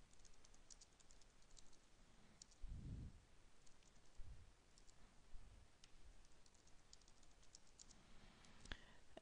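Faint typing on a computer keyboard: runs of light key clicks, with a couple of soft low thumps and one sharper click near the end.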